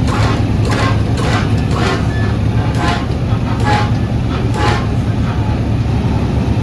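A vehicle engine running steadily with a low hum, with a string of short clicks or rattles over it, about two a second and unevenly spaced.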